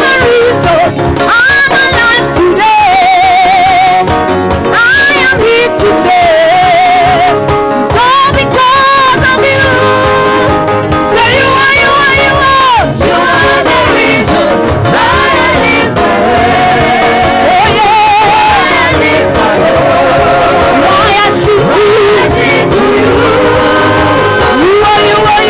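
Gospel praise-and-worship song: a singing voice over instrumental accompaniment with a steady beat.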